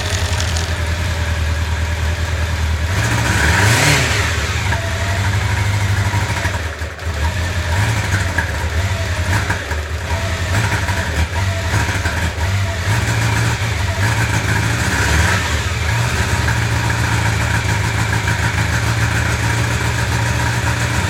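1995 Honda CB750 Nighthawk's inline-four engine running unevenly on three cylinders, misfiring because the number-four carburettor jet is clogged. It is revved up and back down about four seconds in, and more gently around fifteen seconds, and idles the rest of the time.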